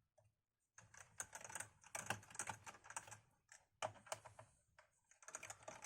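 Faint, quick, irregular clicking and tapping of a screwdriver and its bits working on the screws in a laptop's plastic base.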